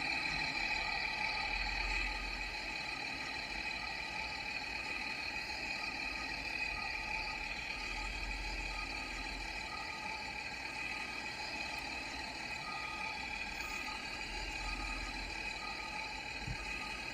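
Steady excavator engine sound effect: a constant high whine over a low hum that swells a few times. Faint short beeps repeat in the later part.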